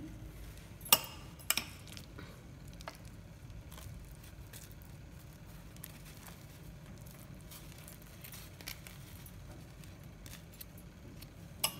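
A few light clinks of a metal spoon and glass dishes, the sharpest about a second in and another just before the end, over a faint low hum.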